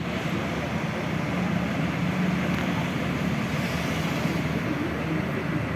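Bus engine running steadily, with street traffic noise around it.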